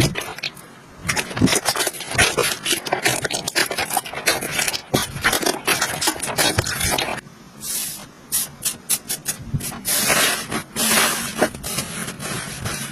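Slime being squished and stretched by hand, giving quick runs of sticky crackles and pops, with a brief lull about seven seconds in.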